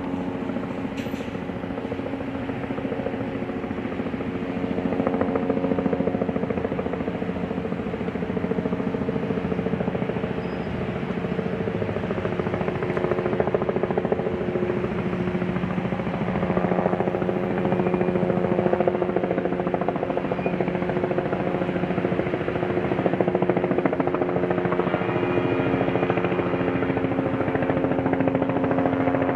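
Steady drone of a large engine, with a few held pitches whose balance shifts slightly midway and again near the end.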